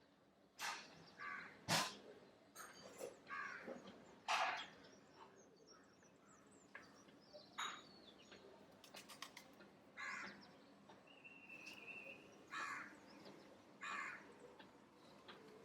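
Crows cawing repeatedly, short harsh calls every second or two. A brief steady whistled note comes about eleven seconds in.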